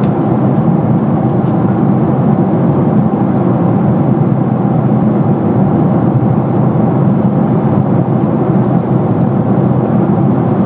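Steady cabin noise of a Boeing 767-400ER in flight, heard from inside the cabin: an even, deep drone of the engines and rushing air that does not change.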